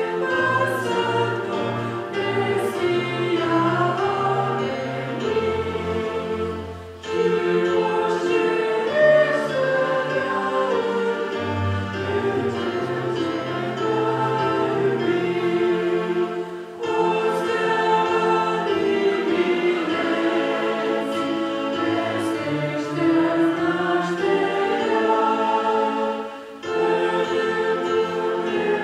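Choir singing with instrumental accompaniment, in long phrases broken by short pauses about every ten seconds.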